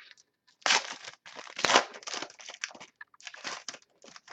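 Crinkling and rustling of trading cards and their foil pack wrappers being handled, in a run of short bursts, the loudest about a second in and again near two seconds.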